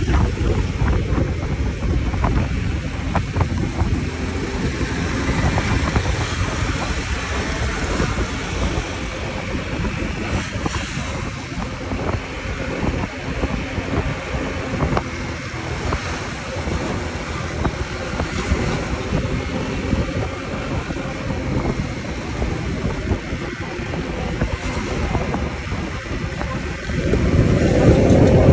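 Honda Click automatic scooter riding along a road, its engine running under steady wind buffeting on the microphone. About a second and a half before the end the engine tone rises and the sound gets louder.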